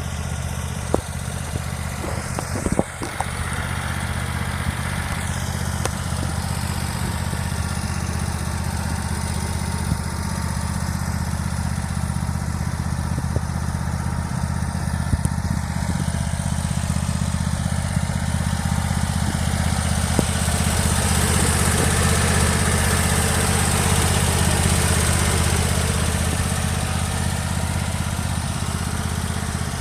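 Simplicity Prestige riding mower's 25 hp Kohler Command V-twin engine running steadily, with a few sharp clicks in the first few seconds. The engine gets louder and brighter for several seconds about two-thirds of the way through.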